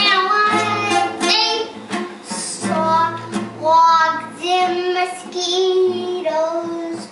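A child singing a song with guitar accompaniment.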